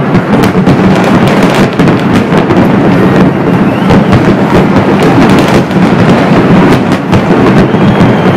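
A loud barrage of aerial fireworks: continuous crackling and bangs with no break.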